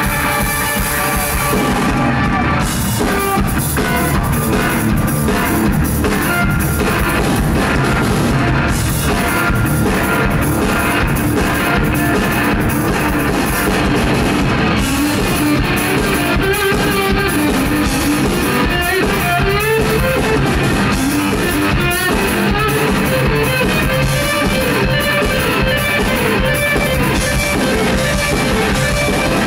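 Live two-piece rock band playing loudly: a semi-hollow electric guitar plays shifting lead lines over a steady drum kit beat.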